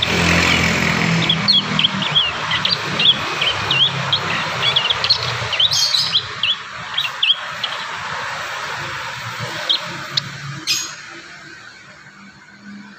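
Young prinias practising their song, a rapid run of short, high chirps and twitters that thins out after about seven seconds. A low hum sits underneath and fades, and there is a short scratchy crackle near the end.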